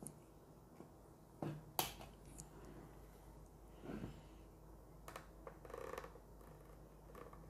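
A few light clicks and taps from hands handling a clamp meter and its cable, the sharpest about two seconds in; otherwise quiet room tone.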